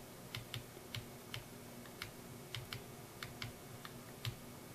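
Typing on a computer keyboard: about a dozen separate key clicks at an uneven pace.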